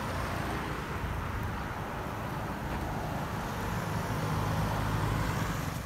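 Road traffic on a main road: a steady hum of cars and scooters going by, swelling as one vehicle passes close near the end.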